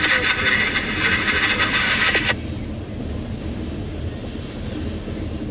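Loaded CSX coal hopper cars rolling past, wheels rumbling and clacking on the rails. A loud hiss over it cuts off suddenly about two seconds in, leaving only the rumble of the cars.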